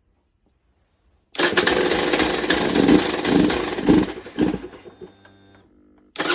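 KTM TPI two-stroke dirt bike engine running loud and rough, surging a few times, then dropping to a lower, steadier note. The sound starts abruptly after a second of silence and is cut off just before the end.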